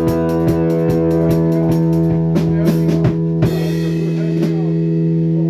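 Live rock band playing: a drum kit beats steady strokes under a held guitar chord, and the drumming thins out after about three seconds.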